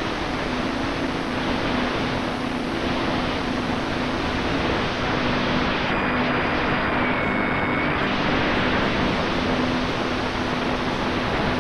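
Wind rushing over an onboard camera on an E-flite Commander mPd electric RC plane in flight, with the steady hum of its electric motor and propeller underneath.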